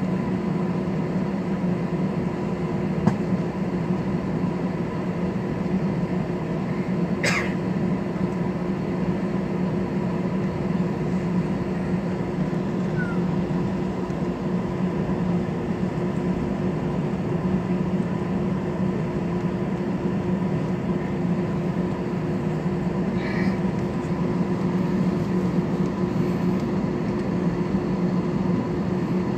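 Airliner cabin noise: a steady engine and airflow drone with a low hum, unbroken, with one brief higher sound about seven seconds in and a faint one near twenty-three seconds.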